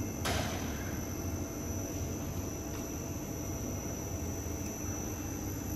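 Steady hum of a hollow pipe welding machine running its forming-roller drive while its speed is being set, with a short burst of noise about a quarter second in.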